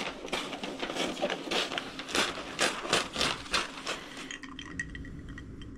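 Wrapping paper being handled and cut with scissors: short, irregular crinkling rustles, several a second, which die down about four seconds in, leaving a few light clicks.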